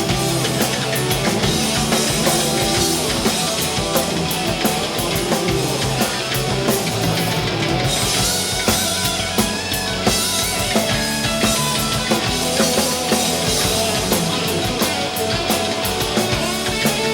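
Loud rock music with distorted guitar and a driving drum kit.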